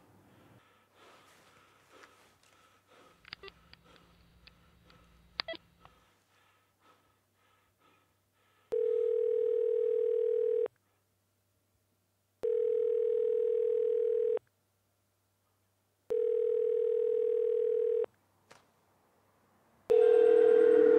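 A telephone ringing tone heard through a phone: the call is ringing, not yet answered. A steady low beep of about two seconds repeats three times with short gaps, and a louder fourth one starts near the end as music comes in. Before it there are only faint clicks.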